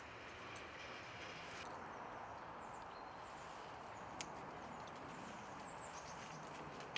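Faint, steady rolling noise of an approaching Tatra T6A2 tram, with a few bird chirps and one sharp click about four seconds in.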